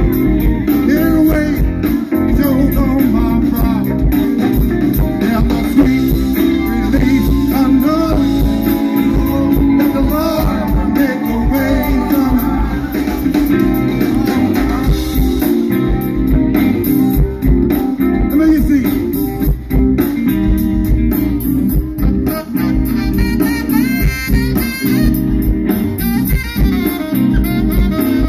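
Live gospel-blues band playing loud through the stage sound system: electric guitar, bass and drums with singing.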